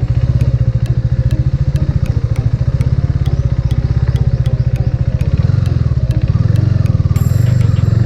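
KTM Duke 250's single-cylinder engine running at low revs with a fast, even beat, picking up a little about two-thirds of the way through.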